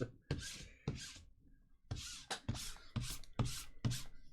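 Trading card boxes and packs being handled: a series of short rubbing, scraping strokes of cardboard and wrapper, a few in the first second, then about two a second near the end.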